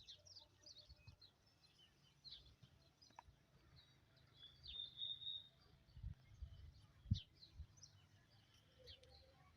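Faint birds chirping: many short high chirps, with one longer whistled note about five seconds in. A few low thumps around six and seven seconds in, the second the loudest sound.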